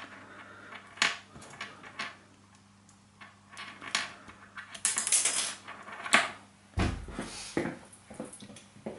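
Small plastic and metal parts of a motorcycle fuel injector being handled and fitted together by hand: scattered clicks, taps and rubbing, with a low thump about seven seconds in.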